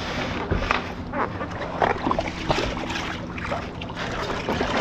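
Kawasaki SX-R 1500 stand-up jet ski's four-cylinder four-stroke engine idling at no-wake speed, with scattered short splashes and knocks over it.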